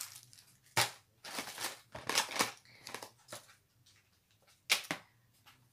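Plastic-bagged kits and small plastic trays being packed into a clear plastic storage box: crinkling and rustling of the bags, with two sharp plastic knocks, one about a second in and one near the end.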